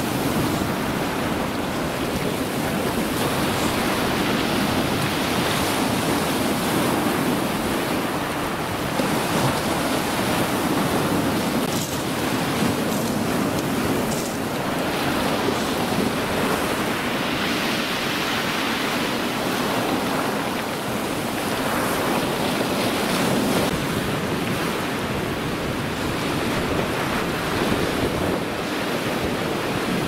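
Black Sea surf washing in a steady wash against a shore lined with large boulders, swelling and easing every few seconds.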